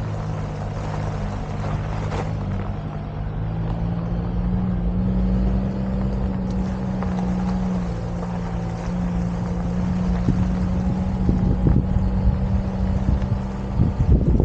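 Daihatsu Atrai kei van's 660cc turbocharged three-cylinder engine running at a steady, low speed as the van drives slowly over a gravel road. Wind buffets the microphone in the last few seconds.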